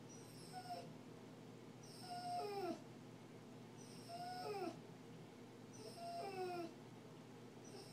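A dog whining after its first heartworm treatment: four drawn-out cries about two seconds apart, each sliding down in pitch.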